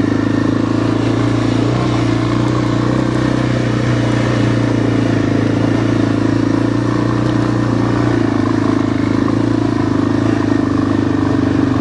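Vehicle engine running loud and close at a steady, unchanging speed.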